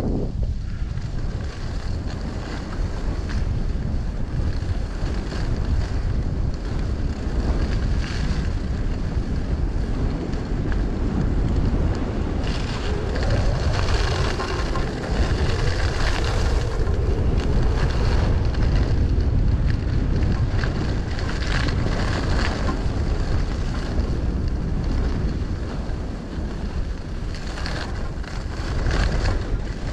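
Wind buffeting a body-worn camera's microphone during a downhill ski run: a steady, loud, low rush that swells and eases at times.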